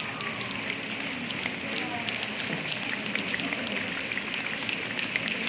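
A large audience making a rainstorm with their hands: a hiss of many hands, thick with scattered finger snaps and pats that sound like rain falling, building a little toward the end.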